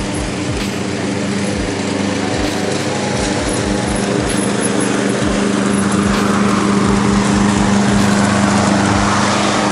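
Walk-behind gasoline lawn mower running steadily while cutting grass. It grows louder as it comes closer, with more of the cutting hiss in the last few seconds.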